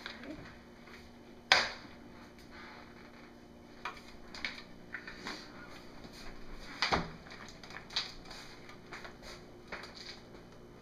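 Scattered knocks of a stainless steel pot against a wooden soap mold while thick soap batter is poured. The sharpest knock comes about one and a half seconds in and a duller thump about seven seconds in.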